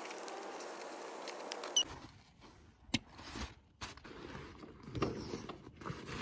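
Fabric rustling and handling noises with scattered sharp clicks, the loudest about three seconds in. This is a sleeping bag and gear being handled. It is preceded by under two seconds of a steady background hiss that cuts off abruptly.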